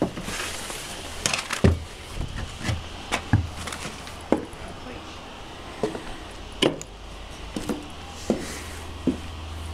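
Irregular footsteps and knocks as someone moves about the deck of an old lifeboat, with about one sharp knock every half second to second, over a steady low hum.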